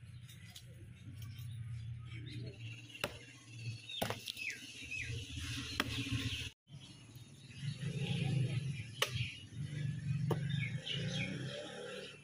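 Small birds chirping over a low, steady hum, with a few sharp clicks; the sound drops out for an instant about halfway through.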